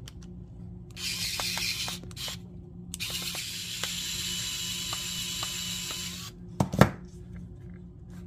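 Small electric precision screwdriver running, backing out the screws of a plastic multimeter case: a short run of about a second, then a steadier run of about three seconds with a high motor whine. Two sharp clicks come near the end and are the loudest sound.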